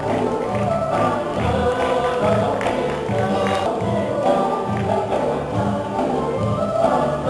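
Traditional Vietnamese water puppet theatre music: several voices singing together over instrumental accompaniment.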